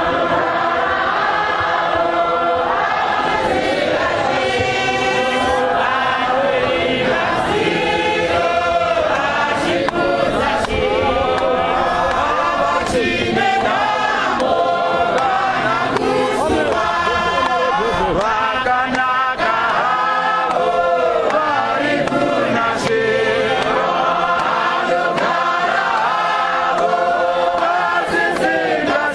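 A church congregation singing a Shona hymn together in chorus, many voices at once.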